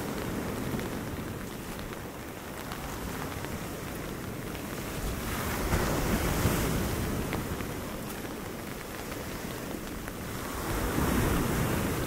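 Storm surf on a Pacific beach: a steady wash of waves, swelling twice as waves break and rush in, once around the middle and again near the end, with wind buffeting the microphone.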